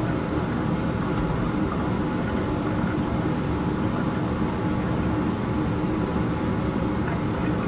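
Steady low background hum with a faint constant tone in it, unchanging throughout.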